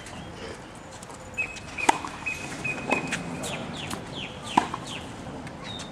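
Tennis ball struck by rackets on a hard court, four sharp knocks spaced one to two seconds apart, with short high squeaks in between.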